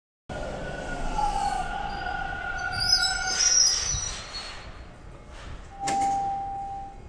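Toronto TTC subway train rumbling at the platform, its wheels squealing high about three to four seconds in. Near the end comes a sharp click, then a steady beep about a second long.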